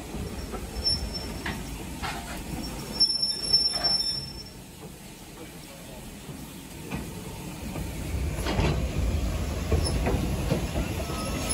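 BR Standard Class 2MT steam locomotive moving slowly, with a low rumble of wheels and motion. A brief high-pitched wheel squeal comes about three seconds in, and the rumble grows louder again from about eight seconds.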